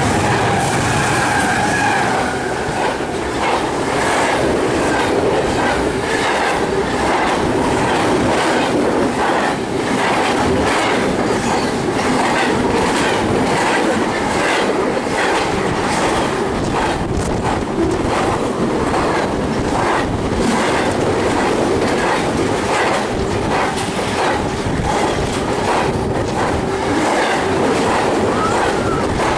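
Freight train horn fading out about two seconds in as the lead diesel locomotives pass. After it, a long string of double-stack intermodal container cars rolls by close, with a steady rumble and a rapid clickety-clack of wheels over the rail joints.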